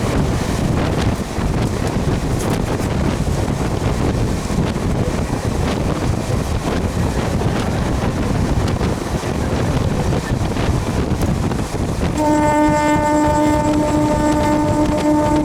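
Running noise of a MEMU electric train heard from on board: a steady rumble with wind rushing past. About twelve seconds in, a train horn sounds one long, steady note lasting about three seconds.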